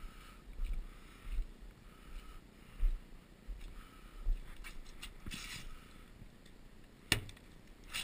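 Dull, low thumps of footsteps and camera handling on wet tarmac, about one and a half a second, fading out around halfway. Then a sharp click about seven seconds in, with a lighter one after it, as the hinged plastic cover of the van's electric hook-up socket is snapped open.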